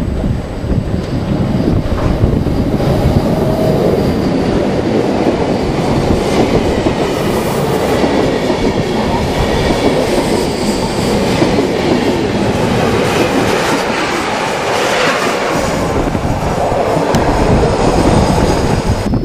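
Locomotive-hauled passenger train passing close by at a station, its coaches' wheels rumbling and clattering over the rail joints, with a faint high wheel squeal midway.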